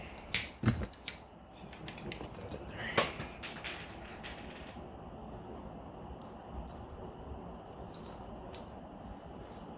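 Tire plug insertion tool being forced and worked back and forth into a tire puncture: scattered small clicks and scrapes of metal against tread rubber. The sharpest click comes about half a second in, with another click and a short scrape about three seconds in.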